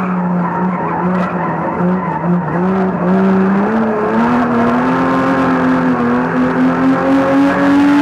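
Banger race car's engine heard from inside the cabin, pulling hard: its pitch dips a little about two seconds in, then climbs steadily as the car accelerates.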